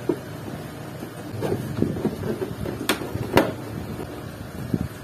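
A hand tool knocking and clicking on the bolts of a Honda Beat scooter's plastic engine fan cover, with scattered soft knocks and two sharp clicks about half a second apart near the middle.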